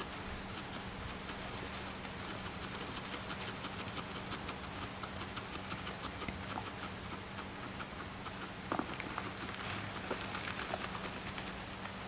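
A guinea pig making a run of small, soft, piglet-like grunts while it roots and nibbles in hay, with crisp rustling and clicking of the dry hay.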